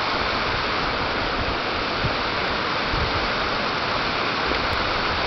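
Steady rush of fast-flowing river water over rocks.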